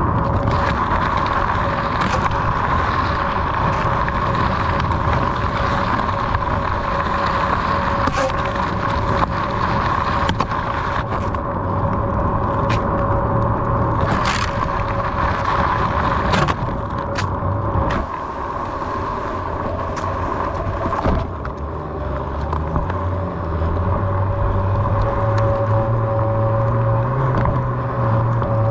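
Onewheel XR hub motor whining steadily while riding, over rumble from the tyre and wind, with a number of short sharp clicks or knocks along the way.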